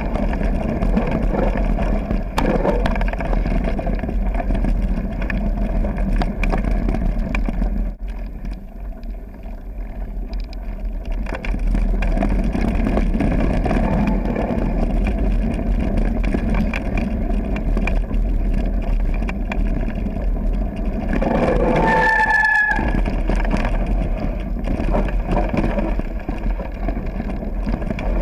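Mountain bike rolling fast over a gravel forest trail, heard from a bike- or helmet-mounted action camera: constant wind rumble on the microphone with tyre crunch and rattling of the bike. The noise eases for a few seconds about a third of the way in, and a short pitched squeal sounds about three-quarters of the way through.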